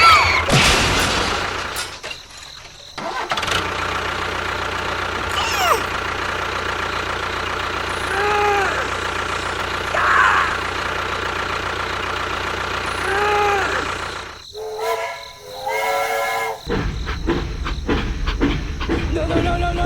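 A small motor running steadily, with a few short rising-and-falling tones over it.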